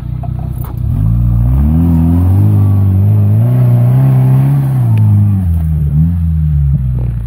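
A Suzuki SJ/Samurai 4x4's engine revving up over a second or so, held high for a couple of seconds, then dropping back about five seconds in and picking up again near the end.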